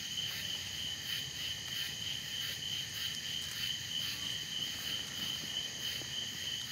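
Steady, unbroken chorus of crickets chirping at night, with a few faint soft ticks over it.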